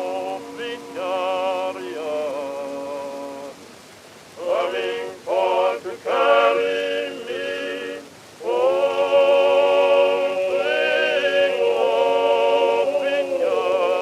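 Slow blues-gospel music with a voice singing long, wordless held notes with a wide vibrato. It breaks off briefly about four seconds in and again about eight seconds in.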